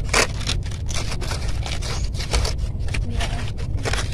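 Hands peeling a pomelo, tearing and scraping the thick spongy white pith away from the fruit in a run of short, irregular rips and scrapes, over a steady low rumble.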